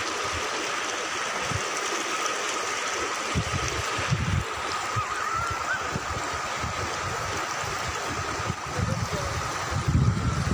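River water flowing, a steady rushing noise, with occasional low rumbles.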